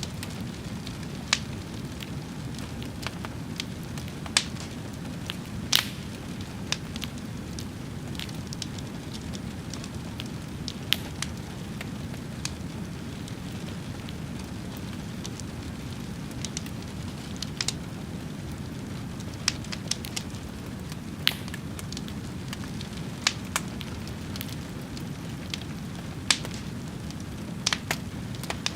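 A fire burning with a steady low rush, crackling and popping in sharp, irregular snaps every second or two.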